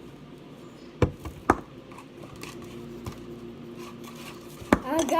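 A few sharp knocks of spoons against plates or bowls while slime ingredients are mixed, two close together about a second in and one more near the end, over a faint steady hum.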